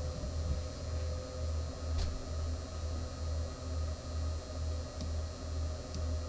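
Low steady hum that throbs about one and a half times a second, with a few faint clicks about two seconds in and again near the end.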